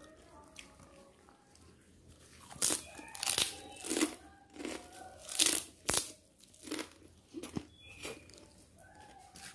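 Close-miked crunchy chewing: a person biting and chewing crisp food, with a run of loud crunches starting about two and a half seconds in, several a second at first, then fewer and softer toward the end.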